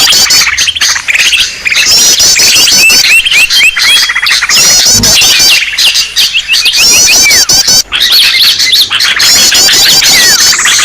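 Bird-lure recording of several small songbirds calling at once: dense high-pitched chirping, fast repeated trills and short sliding whistles layered over each other without a break, played loud.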